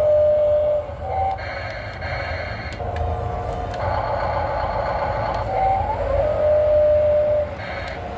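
Radio-controlled model excavator's electric drive whining as it works sand, the pitch holding steady, then stepping and gliding to new notes every second or two as the controls change.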